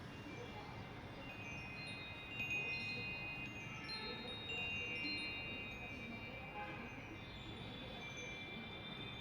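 High metallic chiming notes, several ringing and overlapping as they fade, over a steady background hiss.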